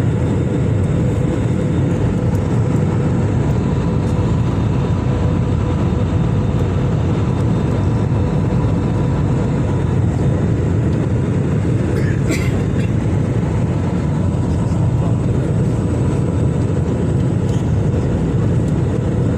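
Airliner cabin noise in flight: a steady low rush of engines and airflow, with a faint constant hum on top.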